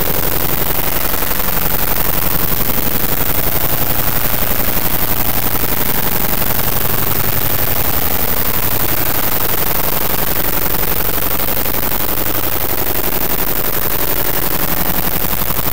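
Harsh noise music made by turning image data into audio (databending): a loud, unbroken wall of crackling noise filling every register, with a fast, even rattle running through it and a few steady low tones underneath.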